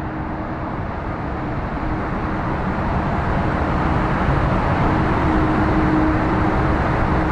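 Airbus A380 on final approach, its four jet engines heard as a steady low rumble with a faint humming tone, slowly growing louder as the jet comes closer.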